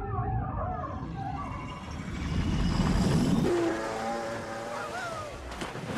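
Muffled underwater sound of swimmers splashing, opening out into a jet ski's engine and spray sweeping past, loudest about three seconds in.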